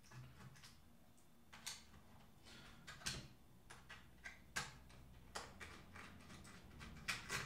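Faint, scattered clicks and light scrapes of fingers prying at the front-panel edge of a Bang & Olufsen Beolink 7000 remote control's housing, a handful of sharper clicks among them.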